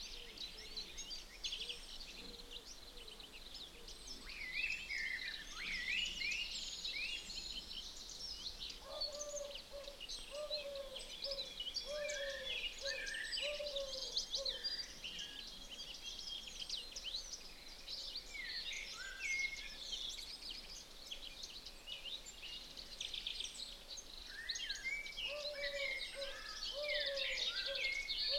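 Birdsong chorus: many small birds chirping and trilling at once. A lower-pitched bird call repeats in a run of short notes about nine seconds in, and again near the end.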